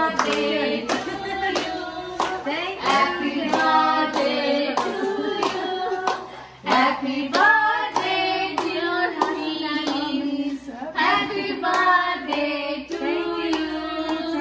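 A small group of adults singing a song together while clapping their hands in a steady beat, about two claps a second.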